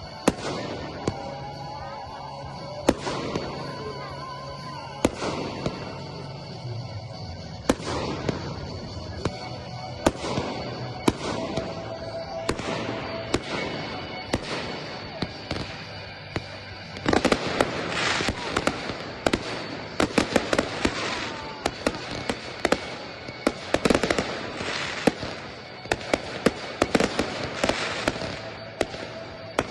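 Category F4 professional fireworks: shells bursting with sharp bangs at irregular intervals, building about halfway through into a dense, rapid barrage with crackling.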